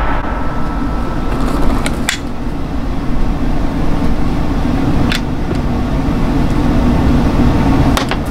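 A steady droning noise with a low hum, broken by three brief clicks.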